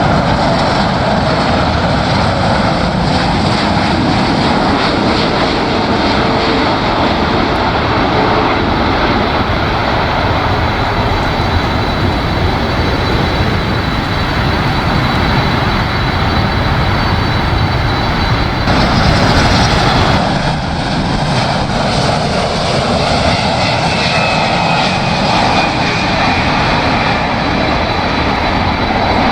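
Boeing 747's four jet engines on landing approach: a loud, steady roar with a thin, high turbine whine over it, growing brighter and sharper for a couple of seconds about two-thirds of the way through.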